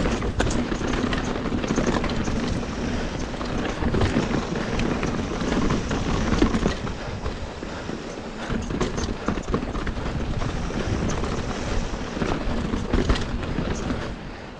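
Mountain bike riding down a dirt singletrack: steady wind noise on the camera microphone over tyre noise on the dirt, with the bike rattling and knocking over bumps.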